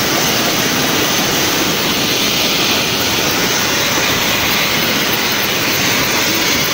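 Helicopter running close by: a loud, steady engine and rotor noise.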